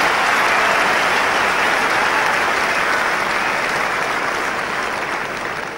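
Large crowd of spectators applauding, a dense steady clapping that begins to die away near the end.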